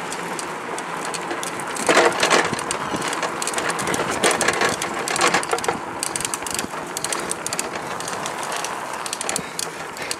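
Continuous rattling and clattering of an unpowered go-kart being towed on a chain behind a bicycle, its wheels rolling over rough asphalt and the chain and frame rattling, with a louder rattle about two seconds in.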